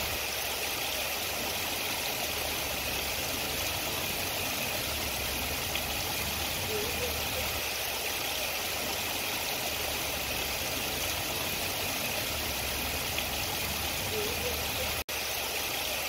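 Steady outdoor background hiss with no clear single source, broken by two faint short rising chirps and an instant's dropout near the end.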